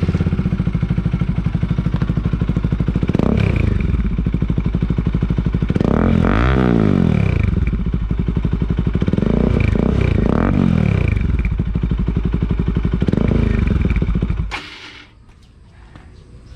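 Motorcycle exhaust through an Akrapovic slip-on muffler with a resonator: the engine idles and is revved about five times, the biggest rev around six seconds in, then it is switched off near the end. The note is somewhat quiet next to an SC-Project muffler.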